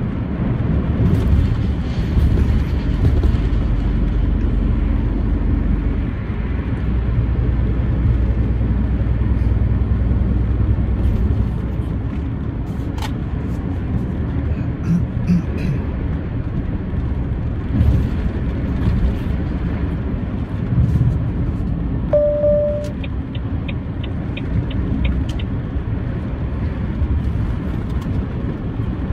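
Truck engine and road noise heard from inside the cab while driving, a steady low rumble that is heaviest in the first half. About 22 seconds in there is a short beep, followed by a quick run of light ticks.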